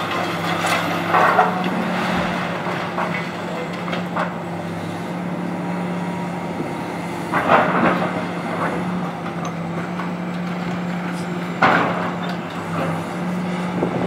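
High-reach demolition excavator's diesel engine running steadily, with masonry and timber crunching and breaking as its attachment tears into the top of a brick building. The crashes of breaking and falling debris come three times: about a second in, midway, and near the end.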